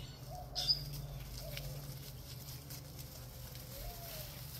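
Light rustling and patter of Scottish terrier puppies moving through grass and dry fallen leaves, over a steady low hum. A single sharp click about two-thirds of a second in is the loudest sound, and faint wavering tones come and go.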